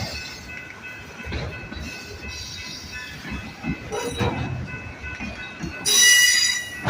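Freight train cars rolling past, wheels knocking irregularly over the rails with a steady high-pitched wheel squeal; about six seconds in, a louder, sharper screech of the wheels.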